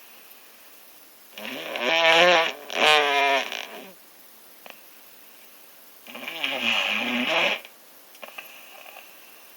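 A sick person snoring: two long snores with a wavering, pitched rasp, the first starting about a second and a half in and the second about six seconds in.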